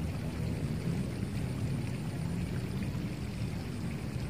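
Steady low rushing outdoor background noise, with no distinct events.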